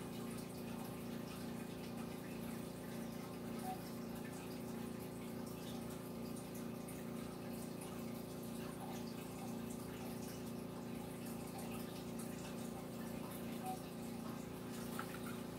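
Steady low hum with a faint hiss, such as a fan or other running appliance, with a faint tick or two.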